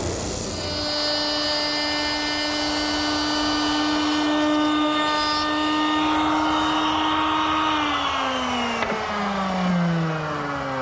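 A high, steady whine from a router spinning at full speed, milling small pockets on the router table. Near the end it is switched off and the whine falls steadily in pitch as it spins down. A spindle sander sanding wood is heard for the first moment.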